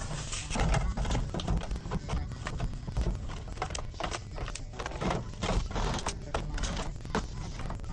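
Kitchen items being handled and set down while restocking: irregular clicks, taps and knocks of containers, with some rustling of packaging.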